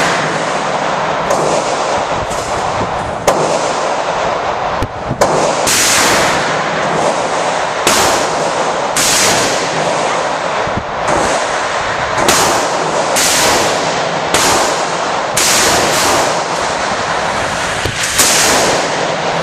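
A steady string of gunshots at a shooting range, roughly one shot a second and sometimes two close together. Each shot rings out and the echoes run into one another, so there is no quiet between them.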